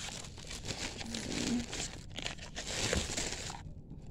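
Crinkling and rustling of packaging as a small cardboard lipstick box is opened and the lipstick tube taken out, stopping about three and a half seconds in.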